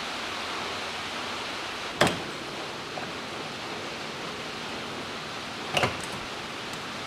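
Steady background hiss with two sharp clicks, about four seconds apart, from hands handling wiring and connectors at an engine-bay fuse box.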